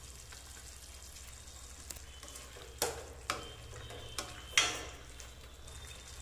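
Curry simmering in a stainless steel kadai with a steady faint hiss, stirred with a ladle that scrapes and knocks against the pan four or five times in the second half. The loudest scrape comes about four and a half seconds in.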